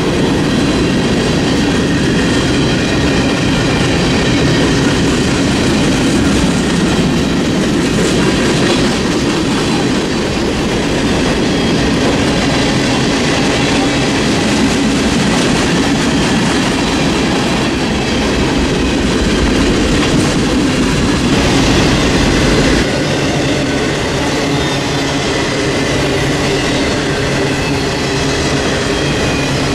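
Freight cars of a long mixed train rolling past close by: a steady rumble of steel wheels on the rails as covered hoppers, refrigerator boxcars, tank cars and autoracks go by.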